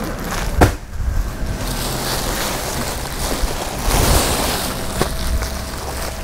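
Woven plastic sacks and plastic-wrapped bundles of clothing being handled, giving a steady rustling and crinkling. A sharp knock comes about half a second in.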